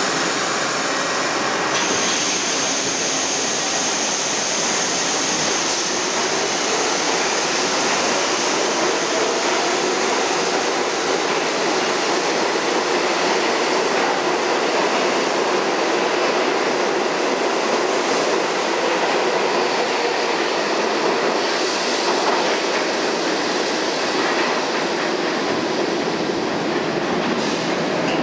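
R62A subway train pulling out of an underground station: a whine rises in pitch over the first several seconds as it accelerates. Then comes steady wheel-on-rail running noise as the cars pass and head into the tunnel.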